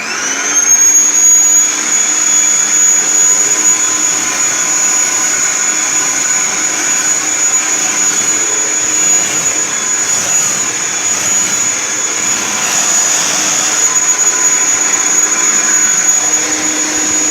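Kirby Sentria vacuum cleaner running steadily with a high whine, spinning up to speed in the first moment, while vacuuming a mattress.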